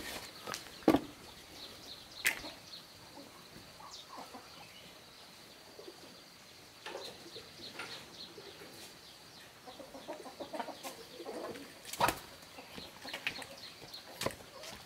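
Farmyard chickens clucking now and then, with a few sharp knocks scattered through and some rustling.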